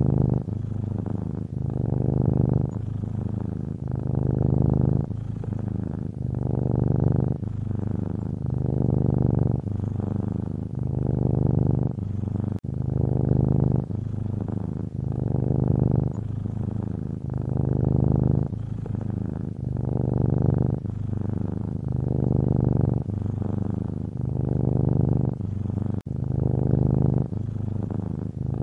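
Domestic cat purring: a low, steady rumble that swells and eases with each breath in and out, about one breath every second and a half.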